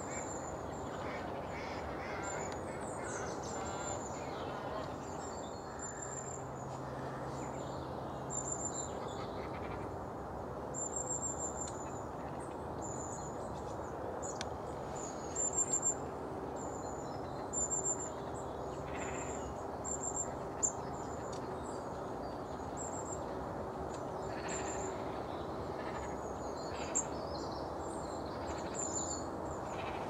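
Greylag geese calling with a few short honks, the loudest in the second half, over a steady outdoor background. Thin, high calls of small birds repeat throughout.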